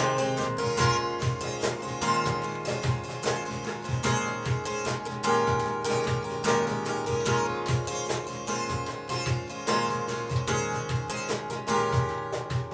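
Instrumental break of a live acoustic song: an acoustic guitar played with steady, closely spaced hand-percussion strokes, and no singing.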